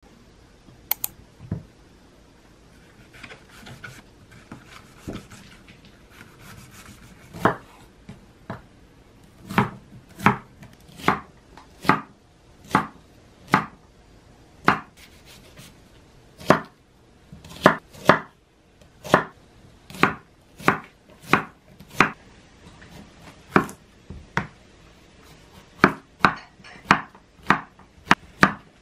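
Chef's knife dicing onion and then zucchini on a wooden cutting board: single sharp knocks of the blade hitting the board. They are few and scattered at first, then come evenly at a little over one a second.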